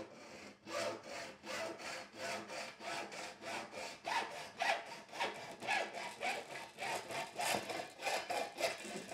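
Hacksaw cutting through a metal carpet door bar, in an even rhythm of two to three rasping strokes a second.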